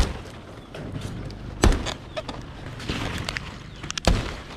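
Building work on a zinc sheet roof: three loud, sharp knocks with lighter clicks and rattles between them.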